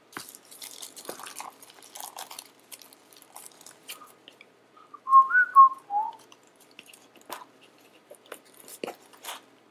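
Cellophane wrap on a small cardboard box crinkling and clicking as fingers pick and peel at it. About five seconds in, a person whistles a short phrase of a few notes, the loudest sound.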